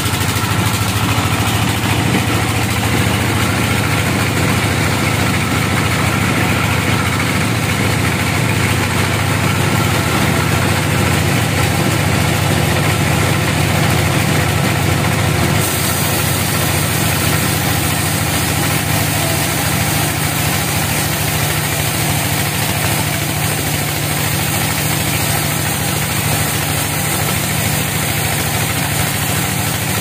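Band sawmill running steadily with an even, engine-like drone, the blade turning without cutting into the teak log. The tone shifts slightly about halfway through.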